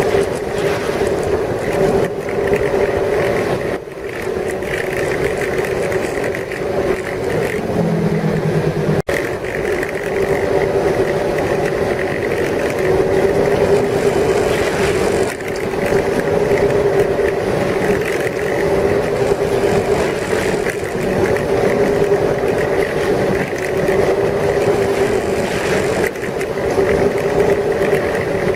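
Ski boat engine running steadily at speed, a constant drone with a noisy rush over it, with a brief cut in the sound about nine seconds in.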